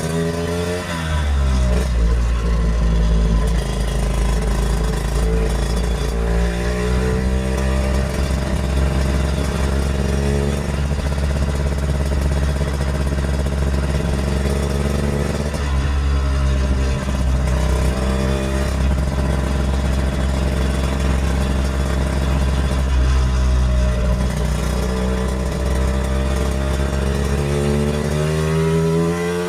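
1964 Lambretta Series 3 scooter's two-stroke single-cylinder engine under way, holding a steady note for long stretches, its pitch shifting a few times as it speeds up, slows and changes gear.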